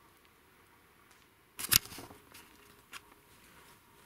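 Quiet woods broken about a second and a half in by a short, loud rustle close to the microphone, followed by a few faint clicks.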